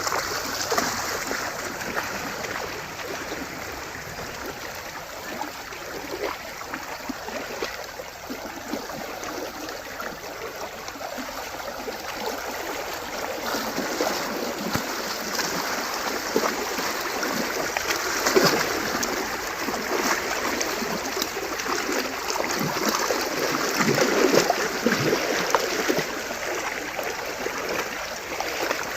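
Cattle wading through a shallow stream: hooves and legs splashing in running water over the steady rush of the current. The splashing comes in louder bouts about 18 and 24 seconds in.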